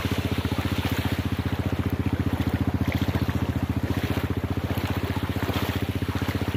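Small boat engine running with a steady, rapid putter, getting louder right at the start, with water rushing and wind on the microphone underneath.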